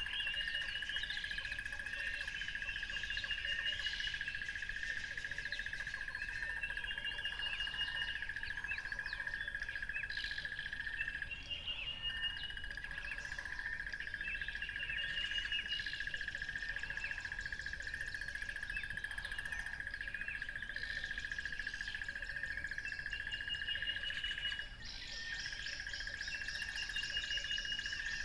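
Several birds chirping and calling, one repeating a short whistled phrase every few seconds, over a steady high-pitched drone that runs throughout.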